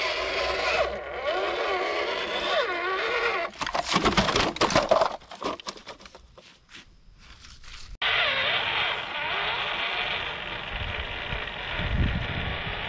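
Electric motor and gearbox of a Tamiya High-Lift F-350 scale crawler whining, the pitch rising and falling with the throttle. About four seconds in comes a burst of clattering knocks as the truck tumbles over. Later the whine returns, with a few low thumps near the end.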